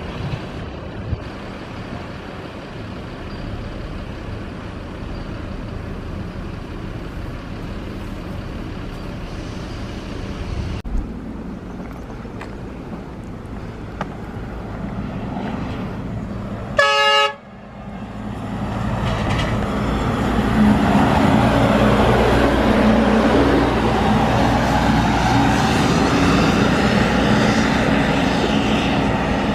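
A steady low rumble, then a short sharp horn toot past the middle, followed by jet airliner engine noise that swells over a few seconds and stays loud and steady to the end.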